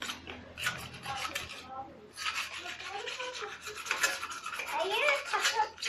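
Rapid scratchy rubbing noise, sparse at first and continuous from about two seconds in, with faint voices near the end.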